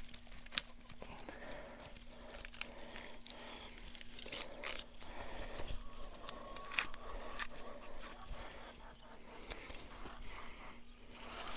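Electric poultry netting being handled: soft plastic rustling with a few sharp clicks as the net and its posts are pulled out and sorted, over a faint steady hum.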